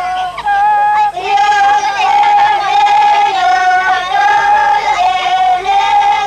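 High voices singing a simple, chant-like melody, holding notes of about half a second to a second and stepping back and forth between two or three pitches, with a lower part sung beneath.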